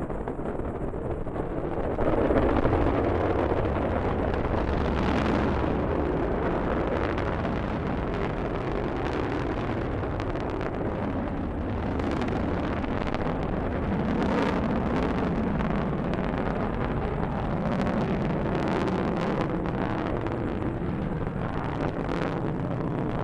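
Rocket engine exhaust rumbling steadily through a launch ascent, with a crackle running through it; it jumps louder about two seconds in.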